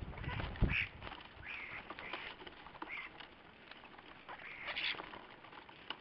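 A flock of common starlings squawking and chattering in short scattered calls, with a flutter of wings and a dull thump about half a second in as birds land.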